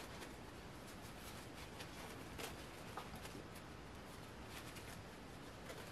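Near-quiet room with faint rustling and a few light ticks from hands handling a plastic fashion doll and its small cloth jacket.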